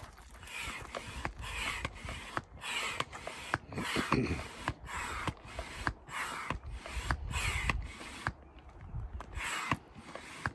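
Manual air pump inflating an inflatable kayak: steady rhythmic strokes, each a short rush of air with a click, about one and a half strokes a second.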